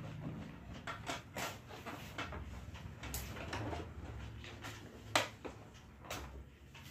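Scattered light clicks and knocks as a plastic mixer grinder is handled and shifted on a glass tabletop, the sharpest knock about five seconds in, over a faint low hum.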